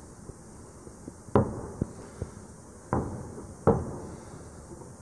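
Aerial firework shells bursting: three heavy booms, about a second in, near three seconds and a little later, each trailing off in a rumble. Lighter sharp cracks come between them.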